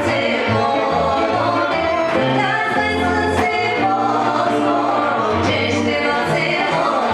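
Live Bulgarian folk band playing: two women singing together over accordion, acoustic guitar and drum, with a moving bass line underneath.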